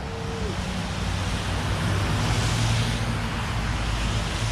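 Road traffic passing on a rain-wet road: tyres hissing on the wet surface with a low engine hum that swells and fades about halfway through.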